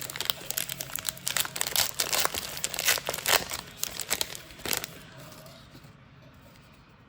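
Foil trading-card pack wrapper crinkling and crackling as it is handled and torn open. It stops about five seconds in.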